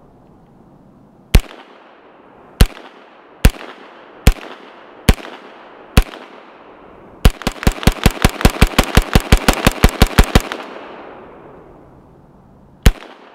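B&T GHM9 9mm semi-automatic pistol firing: six single shots about a second apart, then a fast string of about twenty shots at roughly seven a second, then one last shot near the end. Each shot has a short trailing echo.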